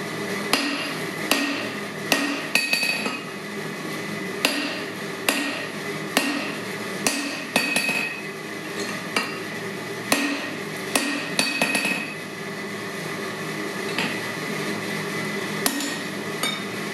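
Hand hammer blows driving a steel drift through the punched eye of a hot hammer head, struck about once every three-quarters of a second, each with a bright metallic ring, over a steady background hum.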